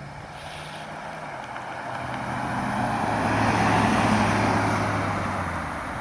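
A road vehicle passing by, its engine and tyre noise swelling to a peak about four seconds in and then fading away.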